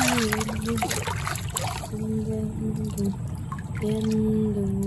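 Shallow paddy water splashing and trickling as hands and a strainer work through it for clams. Over it, a tune plays in long held notes, three of them, each about a second long.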